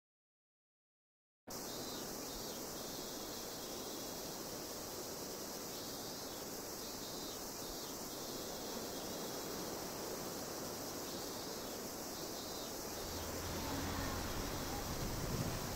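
Steady, high-pitched insect chorus as outdoor ambience, coming in after about a second and a half of dead silence; a low hum joins near the end.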